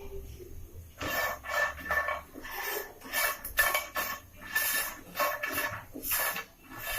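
Dry bari (sun-dried lentil dumplings) scraping and rattling in a pan as they are stirred with a spatula, about two strokes a second from about a second in. The bari are being dry-roasted without oil.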